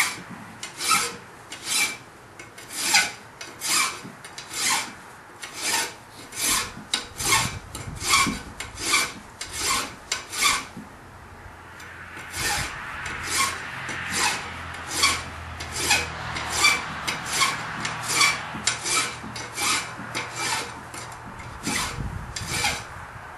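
Hand file rasping on metal in steady back-and-forth strokes, about one and a half a second, with a short pause about halfway through. The file is cleaning a bare spot so the electrolysis lead makes good electrical contact.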